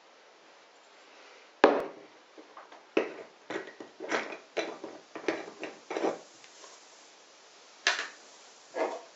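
A small glass jar handled on a wooden tabletop while its screw lid is twisted off, giving a string of knocks and clicks. A sharp knock about a second and a half in, a quick run of clicks over the next few seconds, and two more knocks near the end.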